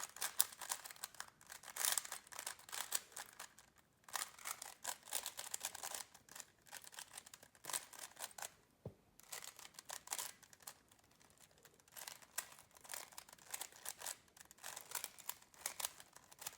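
Magnetic 3x3 speed cube being turned rapidly in a speed solve: fast runs of plastic clicking and clacking, broken by a few brief pauses.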